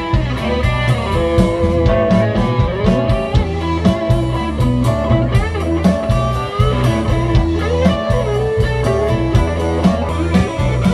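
Live blues-rock band playing: electric guitar with held, sliding lead notes over bass guitar and steady drum hits.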